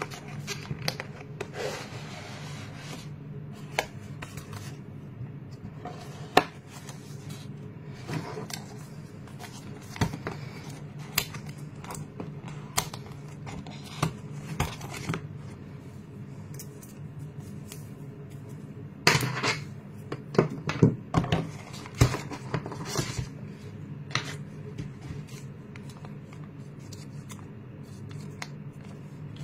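Hands unboxing a smart watch: scattered taps, clicks and rubbing of a cardboard box, the plastic watch and its silicone strap, with a cluster of louder knocks about two-thirds of the way through. A steady low hum runs underneath.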